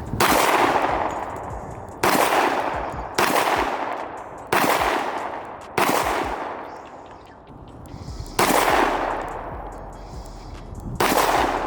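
Seven gunshots from a Glock pistol in 10mm Auto, fired singly at uneven intervals of one to two and a half seconds, each ringing out for a second or more.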